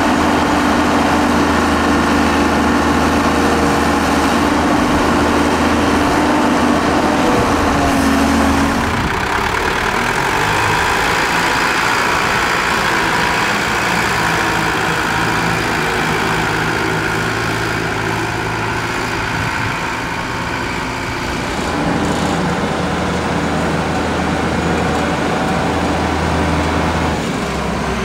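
Heavy diesel engines running. First comes the Hyundai Robex 1300W wheeled excavator's engine as it loads sand into a dump truck. About nine seconds in the sound changes to the loaded Cửu Long TMT dump truck's engine as the truck drives off.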